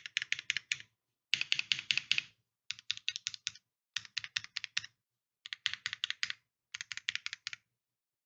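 Typing on a custom mechanical keyboard with lubed linear switches (L + F Alpacas, FR4 plate) and GMK keycaps, in six quick bursts of keystrokes with short pauses between them.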